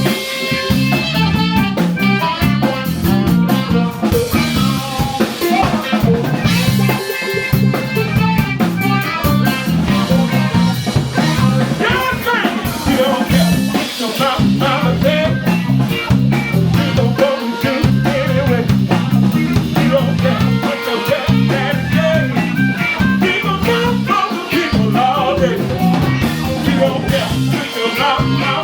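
Live band playing during a sound check: guitar and drum kit keep a steady beat, with a singing voice among them.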